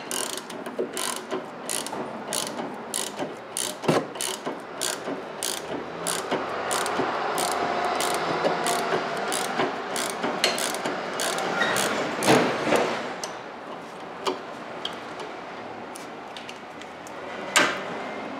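Hand ratchet clicking in a steady run of short strokes, about two to three clicks a second and busier through the middle, as a sway bar link nut is backed off while the stud is held with an Allen key.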